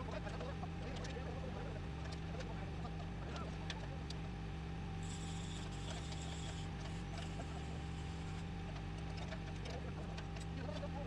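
Job-site noise played back at about five times normal speed: a steady low hum under a scatter of quick clicks and knocks from crew work on steel floor joists.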